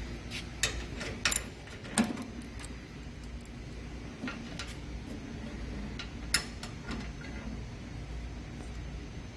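A few sharp metallic clicks and knocks, scattered and irregular, from a socket wrench on the tilt lock of a Delta/Rockwell 6-by-48-inch belt sander and its metal table being tilted. The loudest fall about two seconds in and again past the middle. The sander's motor is off.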